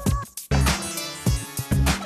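Short broadcast transition music with heavy drum hits and a punchy beat.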